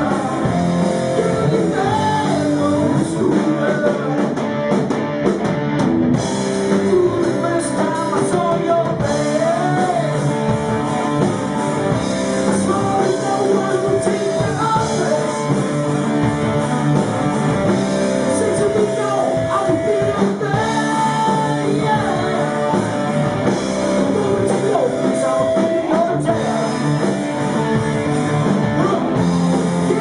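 Rock band playing live: a singer's voice over electric guitar and drum kit, loud and continuous.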